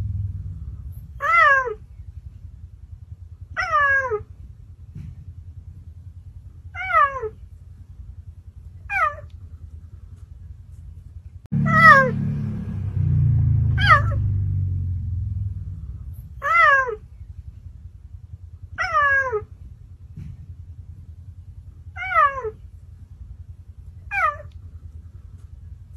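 Cheetah giving short, cat-like meow calls, about ten of them, every two to three seconds, each falling in pitch. A low rumble sounds under the calls for a few seconds near the middle.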